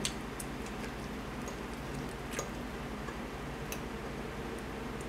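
Knife and fork clicking against a ceramic plate while cutting food, a few sharp separate clinks with the strongest near the middle, over a steady low background hum.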